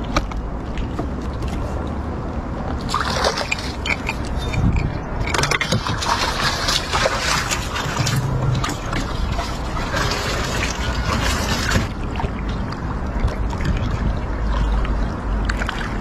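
Water splashing and sloshing in a run of bursts from about three seconds in until about twelve seconds, over a steady low rumble.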